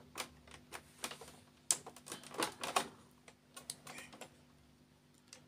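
Irregular light clicks and clacks of plastic and metal parts on an HP LaserJet Pro 500 M525 fuser unit as they are handled and worked loose by hand, thinning out after about four seconds.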